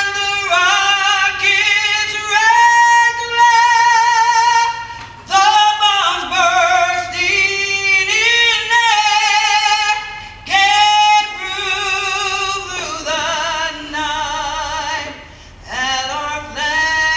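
A woman singing solo, apparently unaccompanied, in long held phrases with vibrato and short breaths between them.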